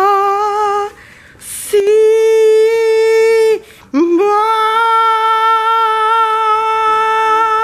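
A voice singing long, steady held notes on one pitch. A short note comes first, then a breath about a second and a half in, a note held for nearly two seconds, and a long note from about four seconds in that is still held at the end. Each note slides up into pitch.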